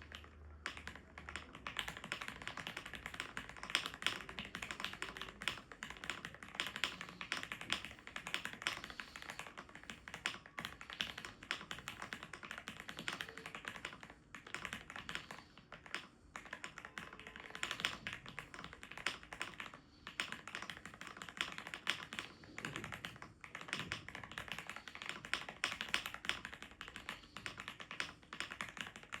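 Typing on an Aula F75 mechanical keyboard with factory-lubed Gateron Milky Yellow Pro linear switches and PBT keycaps, foam- and tape-modded: a fast, steady stream of key clicks, pausing briefly a few times.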